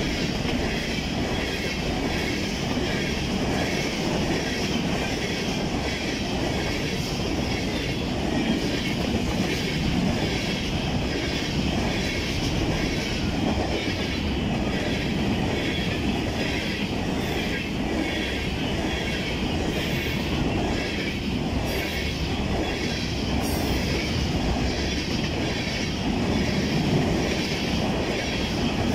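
Freight train hopper cars rolling steadily past at close range, steel wheels running over the rails.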